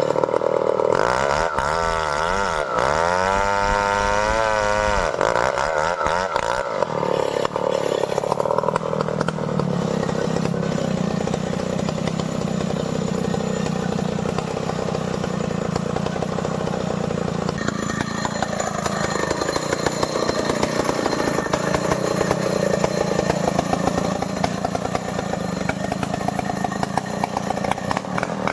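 Stihl 070 two-stroke chainsaw revving up and down several times, then running steadily at high speed, cutting into a large merbau trunk.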